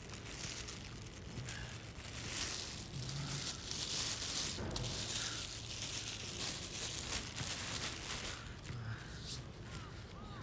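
Close rustling and crinkling of a windbreaker sleeve and hands rubbing against the phone's microphone, loudest through the middle.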